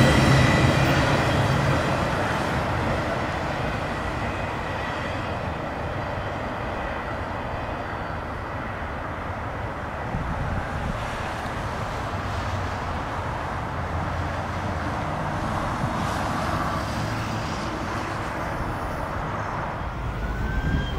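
Intermodal freight train rolling by on the main line, its wheels on the rail making a steady rumble. The sound fades over the first few seconds, with a wheel squeal dying away, then holds at a lower, even level as the train recedes.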